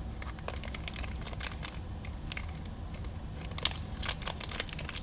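Clear plastic packaging bag crinkling and crackling in the hands as a small camera is unwrapped from it: irregular light crackles throughout.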